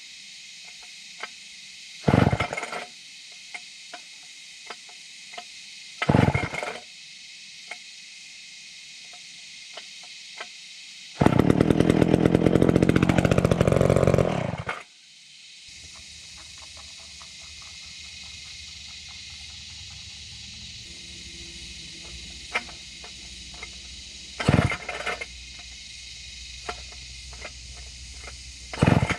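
McCulloch 250 two-stroke chainsaw being pull-started: several short, loud pulls on the starter cord. About eleven seconds in, the engine briefly catches and runs for about three and a half seconds, its pitch dipping and then rising, before it cuts out.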